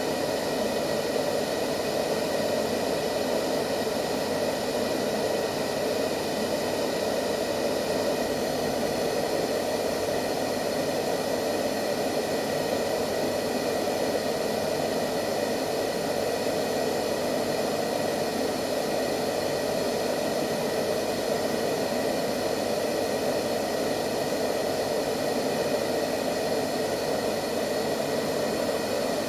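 Steady white noise played as a sleep aid for babies: an even, unchanging rushing hiss, fullest in the low middle of the range.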